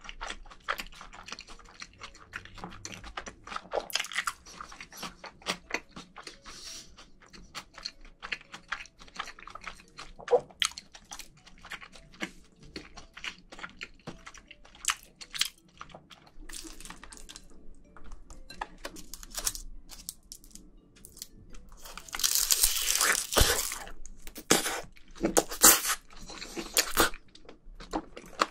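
Close-miked chewing of rice mixed with marinated raw crab: wet mouth clicks and soft crunching, with a louder, noisier stretch about three-quarters of the way through.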